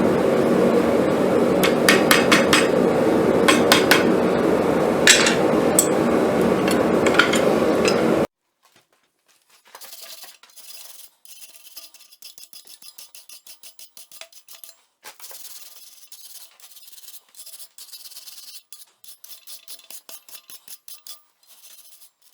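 A forge running with a steady loud roar, with a few light metal clinks, cuts off abruptly about eight seconds in. Quieter rapid scraping strokes on steel follow, as the finished piece is worked by hand.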